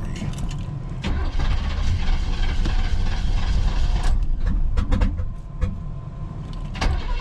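Car engine being cranked over by its starter after sitting for about two weeks, sputtering and struggling to start, then surging as it catches right at the end.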